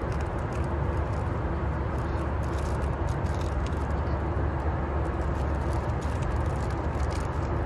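Steady cabin noise of a Boeing 737-800 in flight: the even rush of engines and airflow, with a faint steady hum. A plastic-wrapped cutlery packet crinkles lightly a few times as it is handled.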